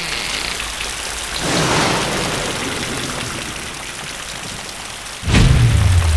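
Heavy rain pouring steadily, swelling briefly about a second and a half in. About five seconds in, a loud, deep roll of thunder breaks in over the rain.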